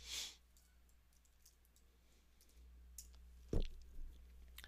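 A few faint computer keyboard keystrokes, the loudest about three and a half seconds in, over a low steady electrical hum.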